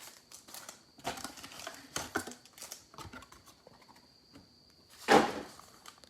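Hands handling and opening a cardboard trading-card box with its wrapped packs, making small clicks and rustles. About five seconds in comes one loud, short rip or rustle of packaging.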